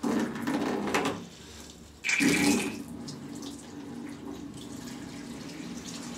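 Water running from a tap into a container being filled. It comes on abruptly and is louder twice in the first three seconds, then settles to a steady flow.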